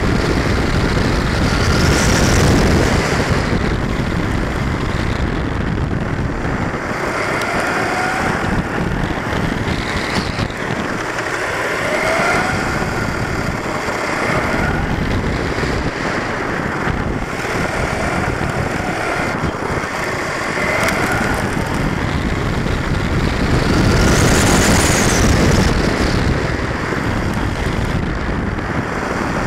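Onboard sound of a 1/10-scale electric short course truck racing on tarmac. Its motor and drivetrain whine rises in pitch again and again as it accelerates, over a steady rush of wind and tyre noise.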